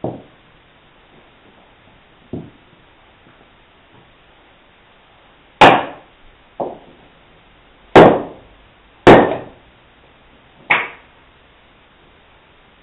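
Wooden mallet striking the back of a froe to split a sweet chestnut bolt into shingles: seven sharp knocks at uneven intervals, two light taps early and louder blows from about halfway in.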